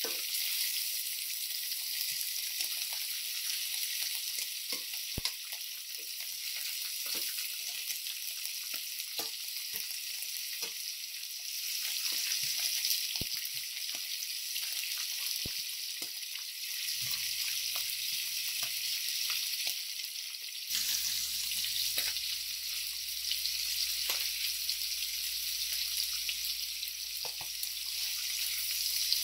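Beef short ribs searing in oil in a stainless steel skillet: a steady sizzle, with scattered small clicks and taps as metal tongs turn the pieces. About two-thirds of the way through, the sizzle steps up and a low hum comes in.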